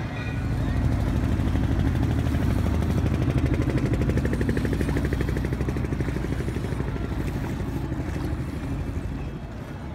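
Motorboat engine running with a rapid, even pulse. It is loudest in the first half and fades off toward the end.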